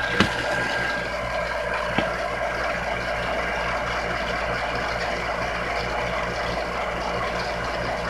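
Pacific Hydrostar 1 HP above-ground jet well pump running steadily, its electric motor giving a low hum with a steady whir above it. Two sharp knocks come about a quarter second and two seconds in.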